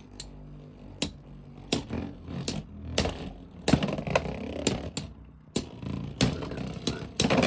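Two Beyblade X spinning tops, Talon Ptera 3-80B and Wizard Arrow, battling in a plastic stadium: sharp plastic clacks of the tops colliding at irregular intervals, about one or two a second, over a low spinning whir.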